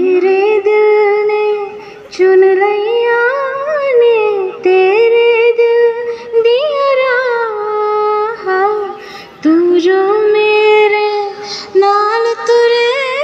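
A young woman singing solo into a corded microphone, amplified through a PA: long held notes with a wavering pitch, sung in phrases with short breaks for breath between them.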